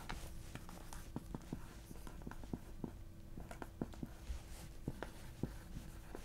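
Pens writing on a board and a notepad: quiet scratching with irregular small taps and ticks of pen tips.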